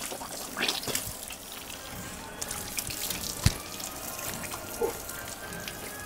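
Water running from wall taps and splashing over hands, arms and feet during ablution (wudu), with scattered small clicks and one sharp knock about three and a half seconds in.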